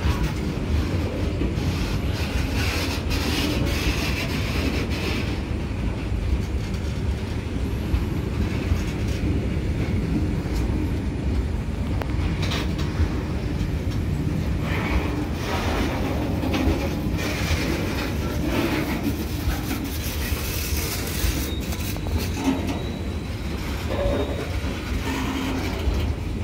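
Goods train of open-top freight wagons rolling past close by: a steady rumble of wheels with repeated clattering over the rail joints, and a faint high wheel squeal near the end.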